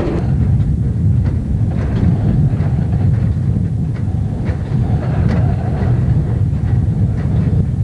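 Hi-rail truck running along the railway track: a steady low rumble of the truck and its steel rail wheels, with a few faint clicks of the wheels over rail joints, heard from inside the cab.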